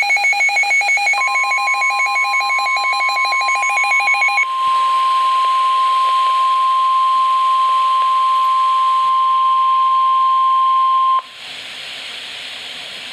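Weather radio alert: a rapid pulsing electronic beep for the first four seconds or so, overlapped from about a second in by a single steady alert tone. That tone is the NOAA Weather Radio warning alarm tone; it holds for about ten seconds and then cuts off suddenly, leaving radio hiss.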